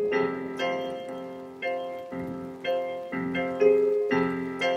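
Piano being played: a slow run of notes and chords, each struck and left to fade, a new one coming about every half second.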